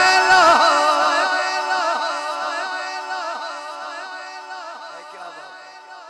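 A man's singing voice holding and ornamenting the last note of a devotional (naat) line, heavily echoed through the sound system over a steady held drone, fading away steadily.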